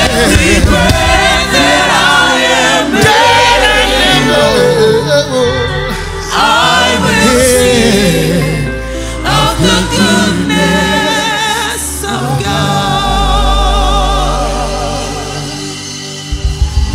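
Live gospel music: a lead singer and backing singers singing over sustained keyboard accompaniment. The music dies down near the end, and a different guitar-led track cuts in just before it stops.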